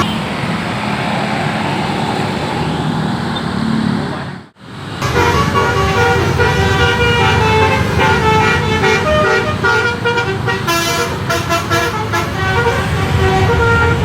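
Basuri musical bus horn playing a tune as a run of held notes at stepping pitches, over a low rumble. The sound drops out briefly about four and a half seconds in, then another horn tune picks up.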